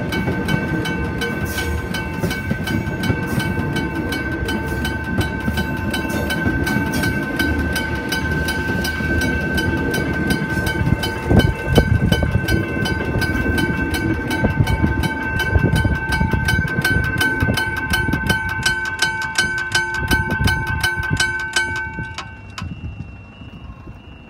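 Level-crossing teardrop bell of the McKenzie & Holland type ringing with rapid, even strikes, over the rumble of a passing electric metro train. The bell and the train's rumble stop about 22 seconds in, leaving a single steady higher tone.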